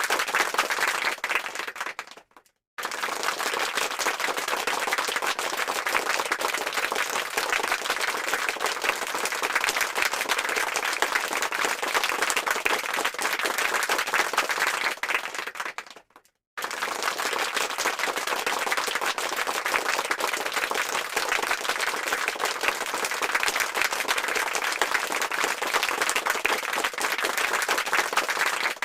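A crowd applauding: dense, steady clapping that fades out and stops twice, about two and a half seconds in and again around sixteen seconds, then starts again straight away.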